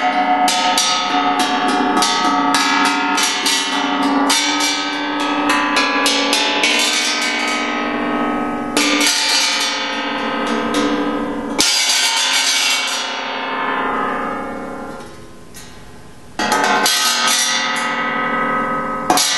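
Large artillery shell casing, its rim cut into tongues, struck with a rubber mallet as a homemade bell-like drum. It rings with many overtones: a rapid run of strikes, then a couple of single strikes left to ring out and fade, then another quick run near the end.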